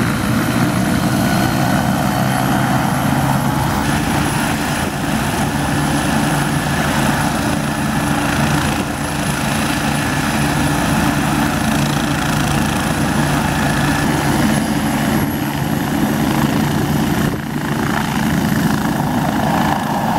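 Bo-105 helicopter's twin turboshaft engines and main rotor running loud and steady on the ground, with a faint high turbine whine over the rotor sound. The low engine and rotor tones grow stronger about four seconds in. The helicopter is lifting off at the very end.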